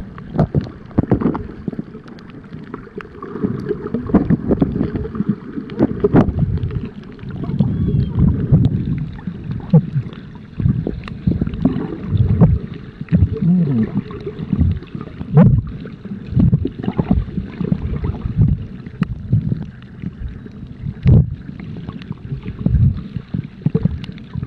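Muffled underwater sound picked up by a submerged camera: low, irregular rushing and sloshing of water that swells and fades every second or so, with a few faint clicks.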